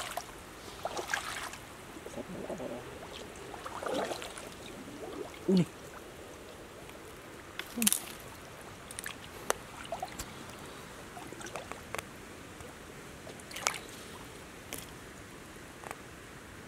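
Shallow stream water trickling steadily, with scattered clicks, rustles and a few short splashes or knocks, two of them louder, about five and a half and eight seconds in.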